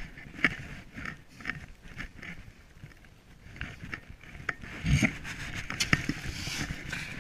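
Rhythmic crunching in deep snow, about two strokes a second, with a heavier thump about five seconds in.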